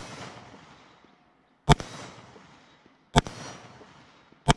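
AR-15 carbine fired three times, about a second and a half apart, each shot followed by an echo fading over about a second. The echo of a shot fired just before trails off at the start.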